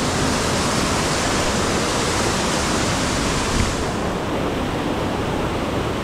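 Waterfall rushing: a steady, full hiss of falling water. A soft knock comes a little past halfway, and just after it the hiss turns duller as its highest part falls away.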